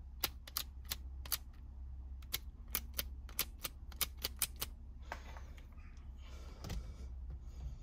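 Removed Mercedes W209 indicator stalk clicking as its lever is flicked through its switch positions: a quick run of sharp plastic clicks for about four and a half seconds, then handling rustle and one more click near the end.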